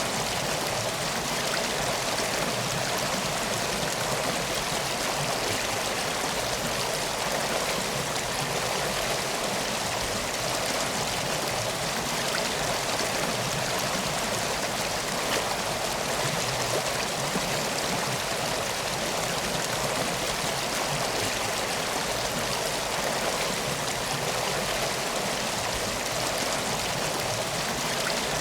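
Steady rush of flowing water, like a stream or small river running over rocks, even and unbroken throughout.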